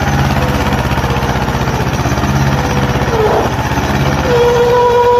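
Mahindra 255 DI two-cylinder diesel tractor engine running hard under heavy load as it hauls a loaded trolley through deep mud, with a fast, even chugging. A steady high tone joins about four seconds in.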